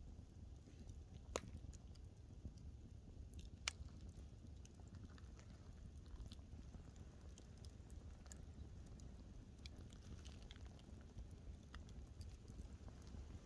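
Wood fire burning quietly, with scattered faint crackles over a low rumble. Two sharper pops come about a second and a half in and just under four seconds in.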